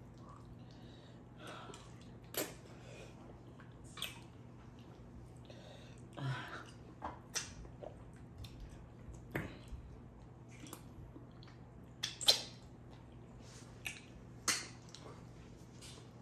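Close-up eating sounds of two people eating amala and stew by hand: scattered wet smacks and clicks of chewing, the loudest about twelve seconds in, over a low steady hum.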